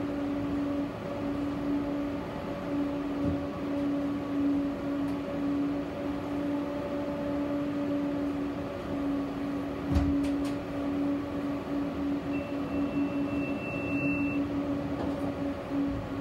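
Tram running along the line: a steady electric hum over rolling wheel-on-rail noise, with a few sharp clacks about ten seconds in.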